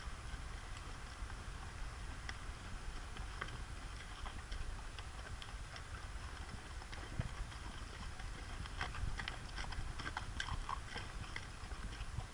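Horses' hooves clip-clopping at a walk on a dusty dirt-and-rock trail, several horses and pack animals in a string, the strikes coming unevenly and thickest about two-thirds of the way through.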